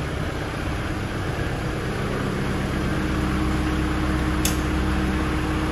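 Diesel tractor engine idling steadily. A higher steady tone joins about three seconds in, and a single sharp click comes about four and a half seconds in.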